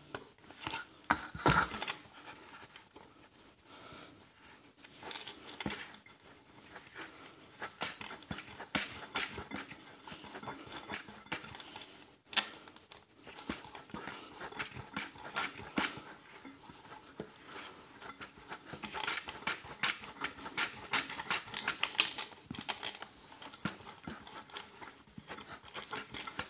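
Faint hand-handling noises: small metallic clicks and scrapes as a washer and nut are worked by hand onto a threaded shaft, with one sharper click about twelve seconds in.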